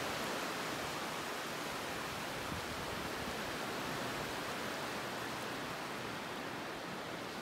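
Gentle surf: small waves washing in over shallow water on a sandy shore, a steady, even wash.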